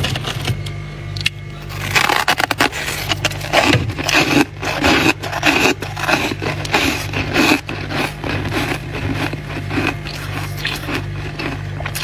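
Packed freezer frost crunching and scraping in quick, irregular crackles that start about two seconds in and go on densely, over a steady low hum.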